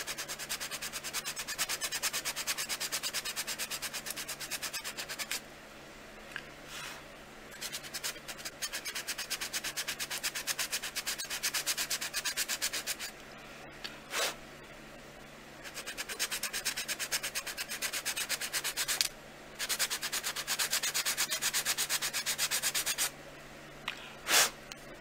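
A worn drywall sanding block rubbed in quick back-and-forth strokes over a baked polymer clay piece, in several runs with short pauses, sanding gold mica paint back off the raised surface so it stays only in the recesses. Two short knocks come between runs, one midway and one near the end.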